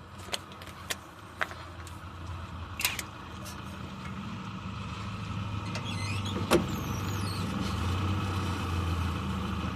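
A motor vehicle running with a low, steady hum that slowly grows louder, and a few sharp metallic clicks of hand tools in the first three seconds.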